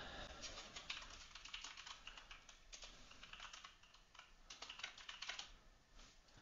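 Faint typing on a computer keyboard: quick runs of keystrokes that die away about five and a half seconds in.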